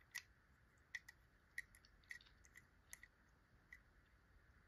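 Near silence broken by about six faint, irregular clicks as a small die-cast metal toy car is handled and turned over in the fingers.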